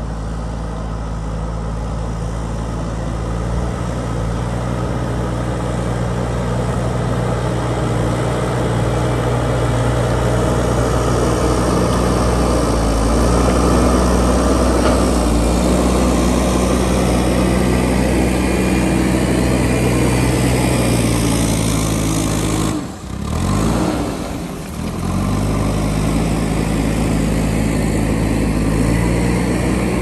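JCB backhoe loader's diesel engine running under load while the front bucket works the soil, the engine note shifting a little. The level dips briefly twice about three-quarters of the way through.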